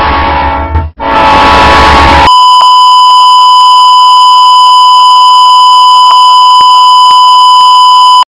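A loud horn sounds in two blasts, with a short break about a second in. At about two seconds it gives way to a steady, high test-tone beep of the kind played over colour bars.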